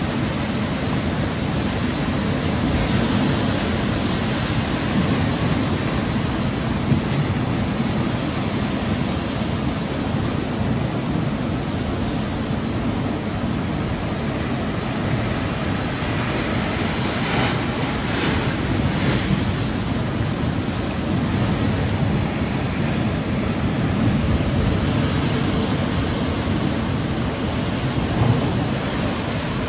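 Sea surf washing against a rocky shore, with wind rushing over the microphone: a steady noise that swells briefly a little past halfway.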